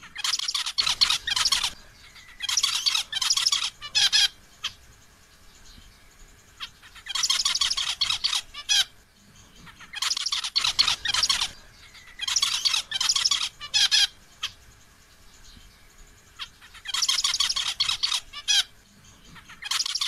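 Male zebra finch singing, a courting male calling to a female. Its song comes in about seven short bouts, each a rapid run of high notes lasting a second or two, with brief pauses between them.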